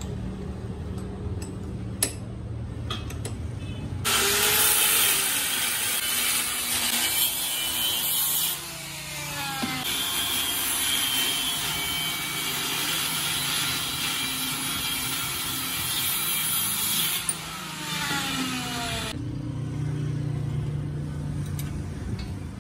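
Electric angle grinder with a cutoff disc cutting through a steel ball bearing held in a vise: a loud, steady grinding that starts about four seconds in, with the motor's pitch shifting under load, and stops a few seconds before the end. Before it, a few sharp metal clicks as the bearing is clamped in the vise.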